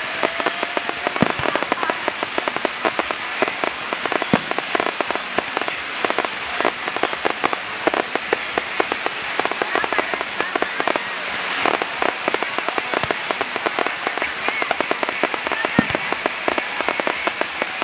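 Fireworks display: a dense, continuous crackling of many rapid small pops from gold crackle-effect fireworks, with scattered louder bangs in among them.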